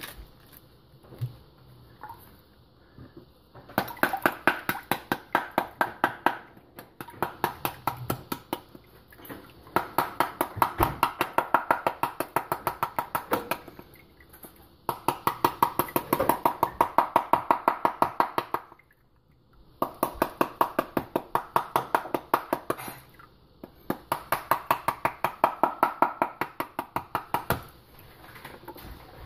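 A wooden spoon whacking the rind of a cut pomegranate half held over a bowl of water, knocking the seeds out: fast, even knocks about five a second, in runs of a few seconds with short pauses, starting about four seconds in.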